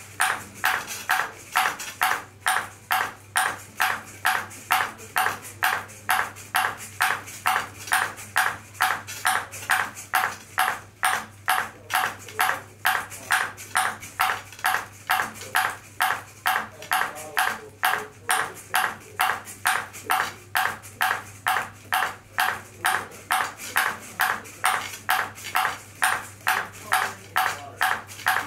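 A ping pong ball bouncing over and over on a robot's paddle, a sharp even tick about twice a second.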